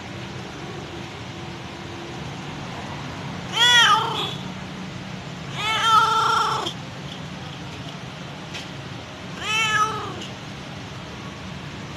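Mother cat meowing to call her kittens: three meows, each rising and then falling in pitch, the second one longer, over a steady low background hum.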